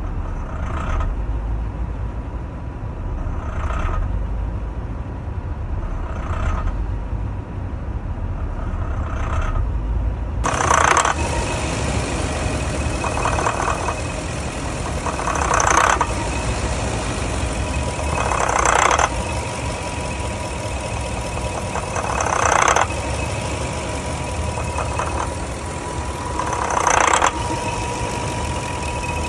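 A warm engine idling roughly, with a steady low rumble broken every few seconds by a brief surge or stumble. About ten seconds in, the sound turns brighter and less boomy.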